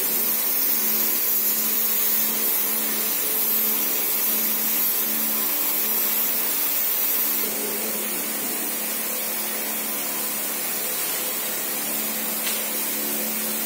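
Steady hum and hiss of power equipment at a building repair site, stepping slightly quieter about halfway through.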